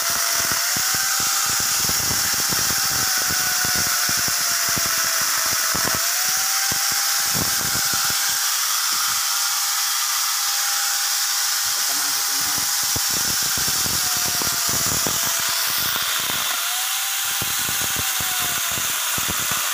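Electric angle grinder fitted with a chainsaw bar-and-chain attachment, running at speed and cutting through a piece of wood. Its steady whine drops in pitch a few times as the chain bites into the wood under load, and climbs back as the load eases.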